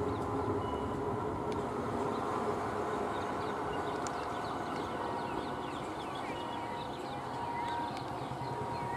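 Electric multiple unit (EMU) local train running on the track with a steady rumble and hum, as it approaches slowly. About halfway through, a thin steady high whine joins in.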